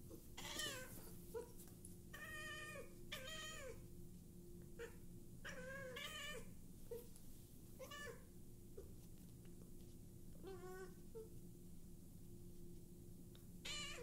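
Domestic cat meowing again and again, about seven meows a second or two apart, some drawn out and several falling in pitch: an upset cat protesting while her paws are being cleaned. A faint steady hum runs underneath.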